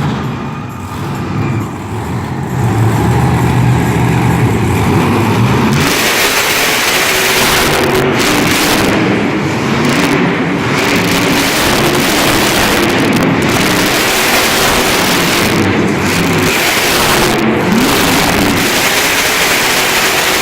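Monster truck engine at high throttle, loud, with short lifts of the throttle every one to three seconds. For the first few seconds it runs lower and quieter, then it opens up fully about six seconds in.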